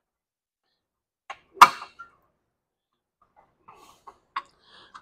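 The sheet-metal cooling shroud of a Rotax 447 engine knocking against the engine as it is worked loose by hand. There is one sharp knock about a second and a half in, then light rustling and a couple of small clicks near the end.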